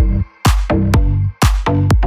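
Electronic dance music with a heavy, steady bass beat about twice a second, briefly dropping out just after the start.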